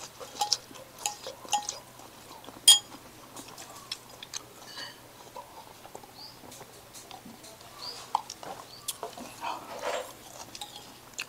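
Close-up eating sounds: chewing and small mouth clicks, with a metal spoon and chopsticks tapping in a noodle bowl. One sharp spoon clink against the bowl rings out a few seconds in.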